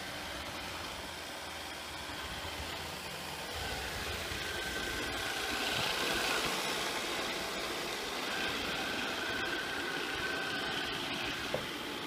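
Samsung SR8730 robot vacuum cleaner running: a steady whir of its suction fan and brushes that grows louder as it passes close about halfway through. A thin high whine comes and goes, and there is one short click near the end.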